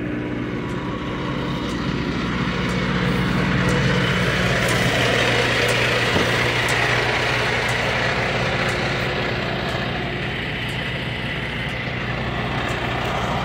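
Truck engine running steadily under a rushing noise that grows louder a few seconds in and then eases off.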